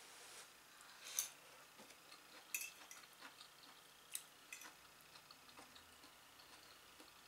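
A metal fork clinking and scraping on a ceramic plate, a few faint sharp taps with near silence between them; the loudest come about a second and two and a half seconds in.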